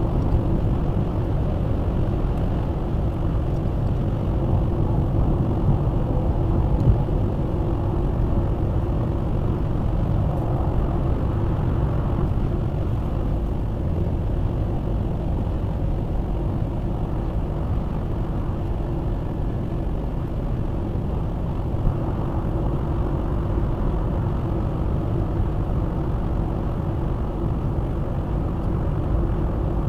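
Steady road and engine noise of a car driving on a motorway, heard from inside the cabin through the dashcam's microphone, with two brief knocks.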